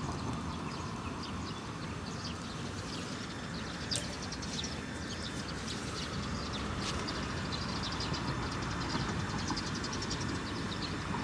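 Wind buffeting the microphone with a steady rumble, a sharp click about four seconds in, and scattered faint ticking.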